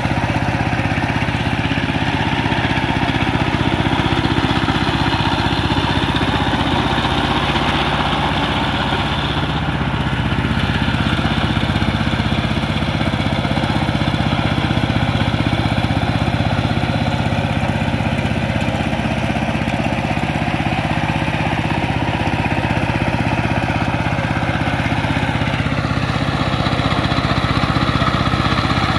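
Two-wheel power tiller's single-cylinder diesel engine running steadily under load as its cage wheels churn through a flooded paddy field.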